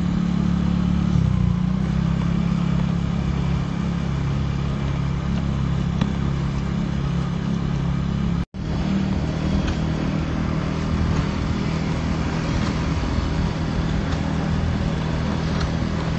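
A motor vehicle's engine running at a steady speed, a constant low hum under an even rush of noise; the sound cuts out for an instant about halfway through.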